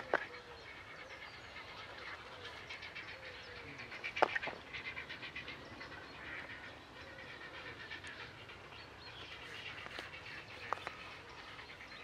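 Wetland birds calling on and off, a mix of short harsh calls. A few sharp clicks stand out, the loudest about four seconds in.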